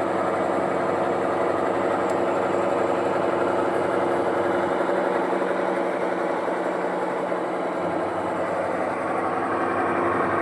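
Samsung washing machine running with a steady motor hum and a whine that hold throughout, the pitch shifting slightly about eight seconds in.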